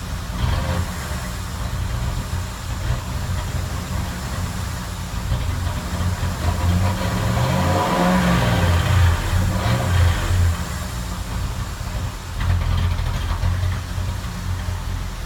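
2007 Ford Crown Victoria's 4.6-litre V8 running steadily, its pitch rising and falling for a few seconds around the middle.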